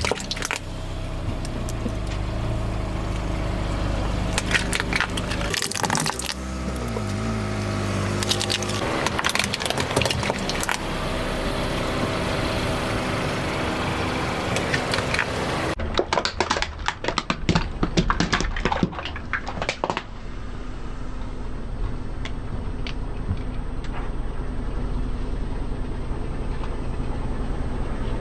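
Car tire rolling over crunchy objects, crushing them in several spells of crackling and snapping, over the steady hum of the car's engine.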